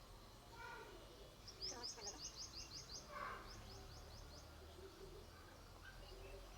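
A small bird calling faintly: a rapid run of about eight high chirps, then a shorter run of about five, over a low background hum.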